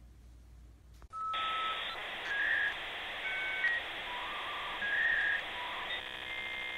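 Electronic outro sound effect: a hiss with short beeping tones at changing pitches, starting suddenly about a second in, turning to a steady buzzy tone near the end. Before it, faint room tone with a low hum.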